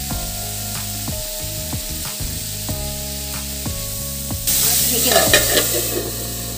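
Diced potato and cauliflower sizzling as they fry in a little oil in a kadai, stirred with a spatula. The sizzling swells sharply about four and a half seconds in and lasts a second or so, over soft background music.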